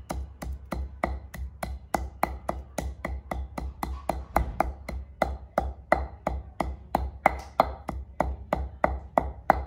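Pestle pounding in a mortar, crushing cardamom pods with whole almonds and peppercorns: a steady run of sharp knocks, about four to five a second.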